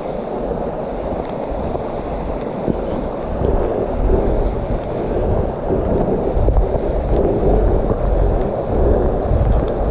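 Wind buffeting the microphone of a moving camera over a steady rushing noise, with the low buffeting growing heavier from about four seconds in.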